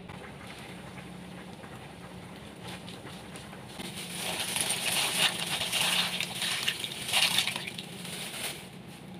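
Dry penne pasta poured into a pot of boiling water, starting about four seconds in: a dense rattling patter of pieces hitting the water and the metal pot for about four seconds, over a steady low hum.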